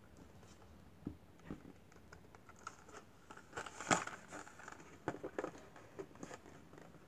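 Plastic blister pack and cardboard backing card of a carded toy car being handled and turned over in the hands: irregular crinkles and light taps, loudest about four seconds in.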